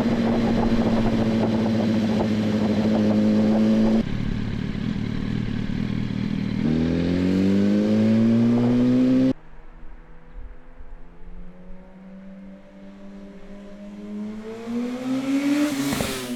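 Yamaha R1 inline-four sportbike engine through a Graves Motorsport slip-on exhaust. It is first held at steady revs, then accelerates with a rising note that cuts off abruptly. The bike is then heard farther off, its note climbing as it comes up and passes close near the end.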